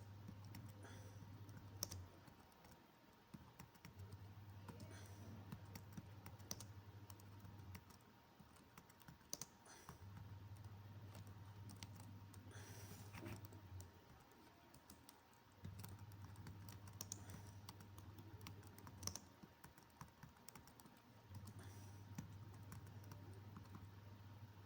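Faint typing on a computer keyboard: scattered, irregular keystrokes. Under it, a low hum switches on and off every few seconds.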